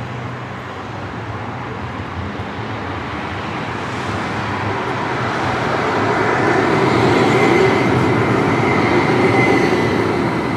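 A CAF Urbos electric tram approaching and drawing alongside the platform. Its rolling and motor noise swells from about four seconds in and is loudest as the tram passes close, with a faint high whine.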